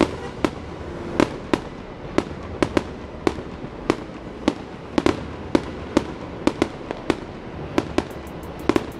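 Fireworks display: aerial shells going off in a fast, irregular run of sharp bangs, about two a second.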